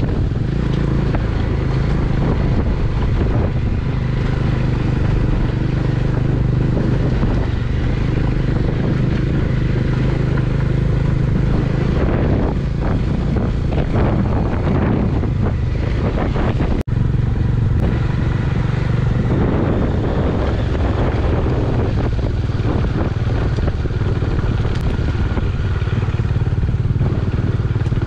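Motorcycle engine running at a steady speed on a ride along a gravel road, heard from the rider's seat. The sound cuts out for an instant a little past halfway.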